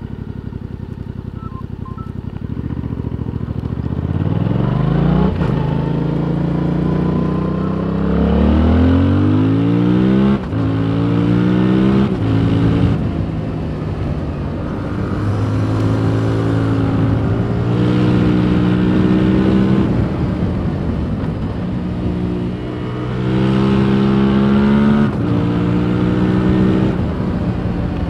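A 2021 Yamaha MT-07's parallel-twin engine through its stock exhaust, heard from the rider's position: low and steady at first, then revving up through the gears from a couple of seconds in, the pitch climbing and dropping sharply at each upshift, then rising and falling as the throttle is opened and closed.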